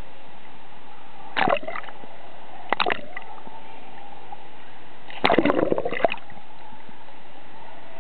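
Two short splashes, then a bigger splash about five seconds in lasting most of a second, as a small child jumps into the pool. Under them runs the steady hiss of an indoor pool hall.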